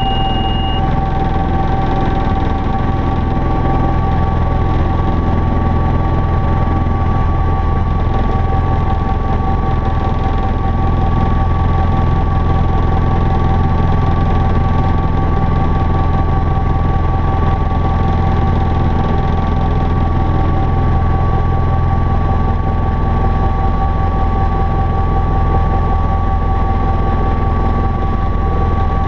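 Helicopter in cruise flight heard inside the cockpit: its engine and rotor run steadily, a constant whine over a low rumble.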